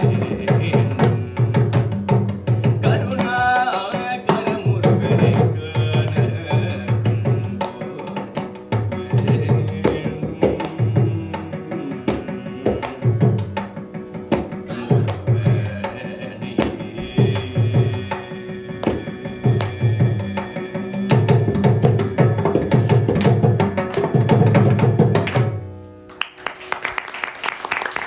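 Mridangam played in fast rhythmic strokes at the close of a Carnatic song, with a short sung vocal phrase about three seconds in. The drumming stops near the end and clapping begins.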